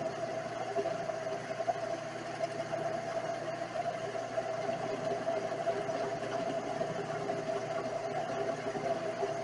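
Vevor 7x14 mini metal lathe running, a steady machine whine.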